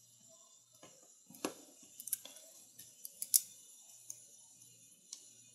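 Small metal parts of a disassembled folding knife clicking and tapping as they are handled and set down: a few separate sharp ticks, the loudest about three seconds in.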